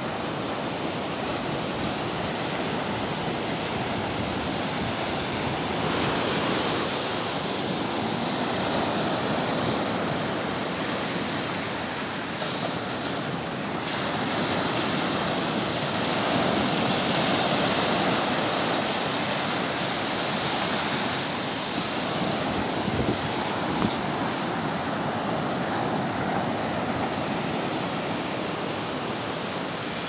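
Sea surf: small waves breaking and washing up over flat wet sand. It makes a continuous rushing that swells and eases slowly.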